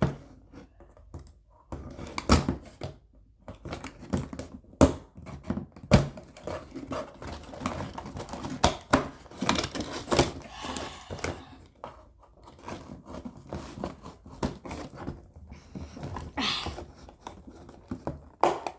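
Plastic toy packaging being handled and opened: crinkling with irregular clicks and knocks.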